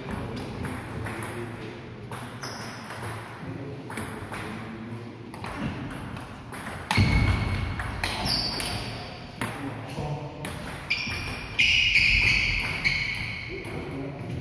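Table tennis rally: the ball clicks off the bats and the table in quick succession, in a reverberant hall. Louder high-pitched sounds come over the clicks about halfway through and again near the end.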